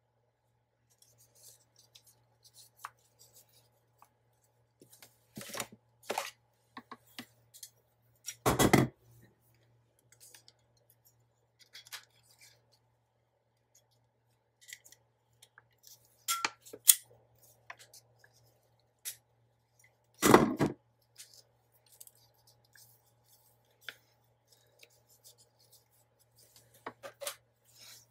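Scissors cutting paper in short, scattered snips, with paper being handled between cuts. Louder knocks come about 9 and 20 seconds in, and a faint steady hum sits underneath.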